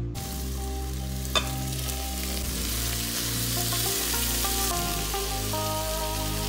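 Background music over a steady sizzle of chicken in a hot cooker pot, with one sharp click just over a second in.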